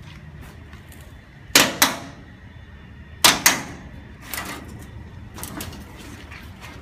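Two pairs of sharp metal clicks, about a second and a half in and again about three seconds in, as the latches on the aircraft ground air-conditioning unit's sheet-metal access panel are released and the panel is opened; a few lighter clicks follow over a low steady hum.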